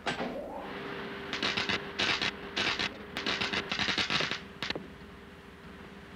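A knock as someone climbs into a wooden wagon, then a run of about seven short scraping and rustling sounds as things are moved about inside it, over a faint steady hum.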